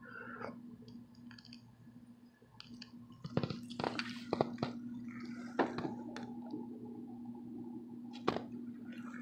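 A person taking a hit of cannabis: several sharp clicks about three to four seconds in, then a long drawn breath and smoke blown out near the end, over a steady low hum.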